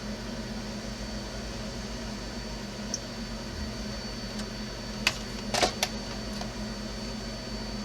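Steady background hum and room noise, with a few small sharp clicks about five seconds in.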